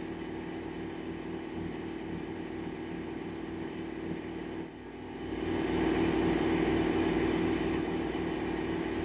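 Steady mechanical hum with an even low throb, growing louder about five seconds in and staying so.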